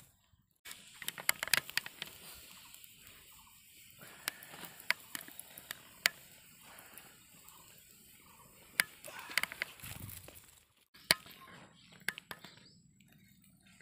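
Irregular sharp crackles and snaps of dry twigs and embers being handled in a smouldering campfire as a fire-roasted fish is picked out of the ashes.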